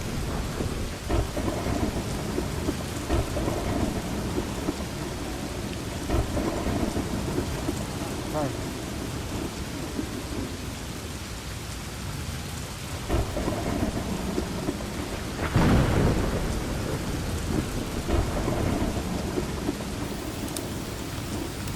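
Heavy rainstorm: steady rain with thunder rumbling, swelling to its loudest about two-thirds of the way through.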